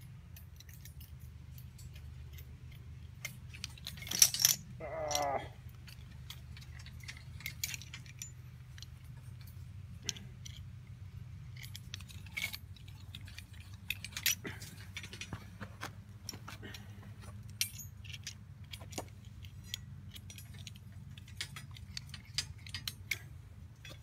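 Steel tie wires being twisted around rebar with a hand tie-wire twister: scattered small metallic clicks and clinks over a steady low hum. About four seconds in there is a louder clatter, followed by a short squeal.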